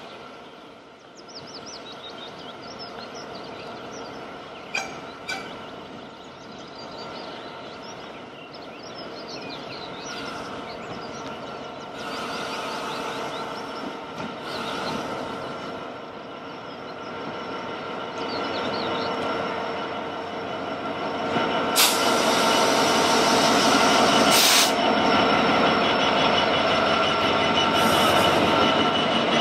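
Freightliner Class 66 diesel locomotive hauling loaded hopper wagons, approaching and passing close by, its engine steadily growing louder. Wheels squeal on the curved track, with a few short sharp hisses as it passes. Birds chirp at first.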